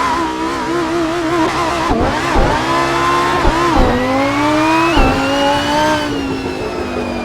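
Lamborghini Huracán Performante's naturally aspirated 5.2-litre V10 pulling away: the engine note wavers at first, then climbs hard, snapping down with a short crack at each of three quick upshifts, and levels off near the end.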